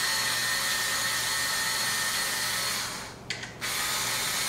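Power screwdriver running with a steady whine as it backs screws out of a Corvette rear-window screen. It stops briefly about three seconds in, then starts again.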